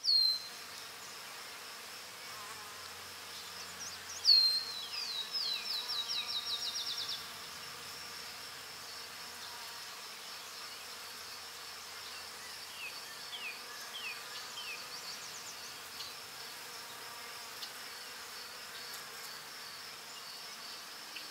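Insects buzzing and chirping in a steady high drone, with a loud run of quick falling chirps about four seconds in and a few more falling chirps around the middle.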